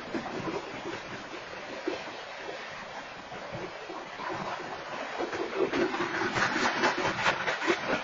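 Freight train hopper cars rolling past, wheels rumbling steadily on the rails, with a louder run of rapid wheel clacks in the last few seconds.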